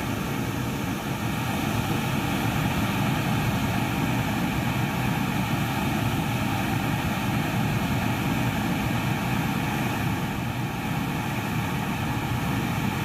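Flash-flood torrent of muddy water rushing down a mountainside and over a road: a steady, loud, churning rush of water with no break.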